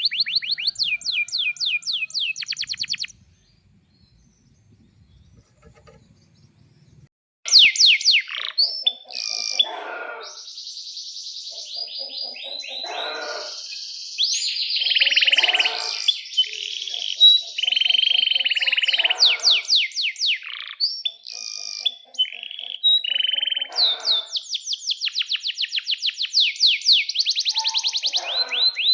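Male domestic canary singing long, loud song of fast trills and rolled runs of repeated notes. The song breaks off about three seconds in and resumes after a pause of about four seconds.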